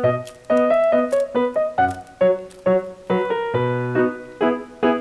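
Background piano music: a lively tune of quick notes, several a second, each struck and fading.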